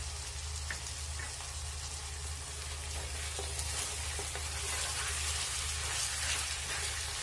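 Chicken pieces and sliced onions sizzling steadily as they fry in oil in a pot, stirred with a spatula that gives a few faint scrapes.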